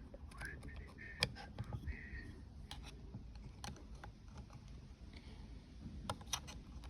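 Scattered light clicks and taps of hand work on the gearbox's control-unit parts, about five sharp ones spread irregularly, with a couple of brief faint squeaks early on.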